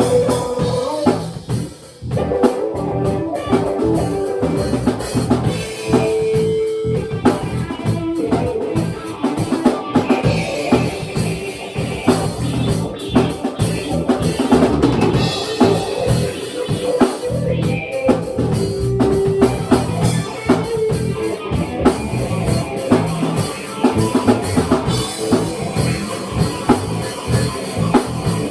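Improvised band jam: a drum kit keeps a steady beat on kick drum, snare and rimshots under sustained instrument notes, with a brief drop in the playing about two seconds in.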